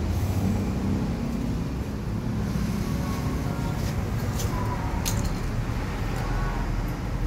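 Steady low mechanical rumble, with a few light clicks of small metal parts and tools being handled in the second half.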